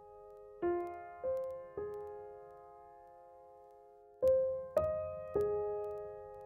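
Background music: slow, gentle piano notes struck one or two at a time and left to ring, in two short three-note phrases with a pause between.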